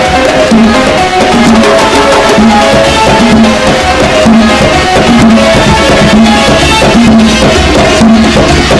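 Background music with drums and percussion and a steady beat.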